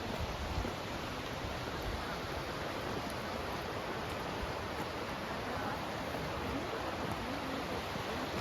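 Steady rushing roar of a waterfall and fast creek water, an even hiss with no let-up, with a few low bumps in the first two seconds.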